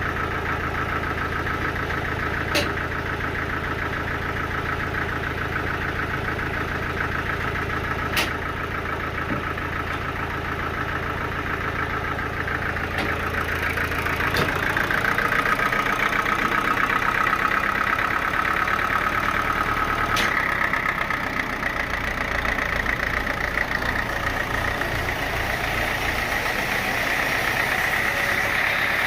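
Sawmill machinery running steadily with an engine-like hum and a few sharp knocks. About halfway through the sound gets louder and higher, with a steady tone like a saw under load.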